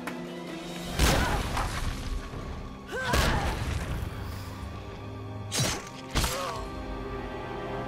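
Dramatic film score under a fight: four sudden heavy hits, about a second in, at three seconds, and two close together near six seconds, with short strained grunts after the second and the last.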